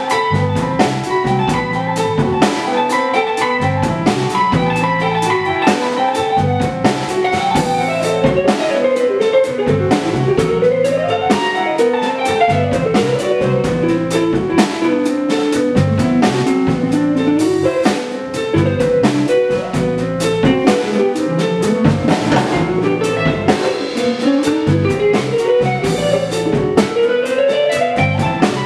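Live jazz band without trumpet: an electric guitar solo line that runs up and down in sweeping phrases, over piano, electric bass and a Yamaha drum kit.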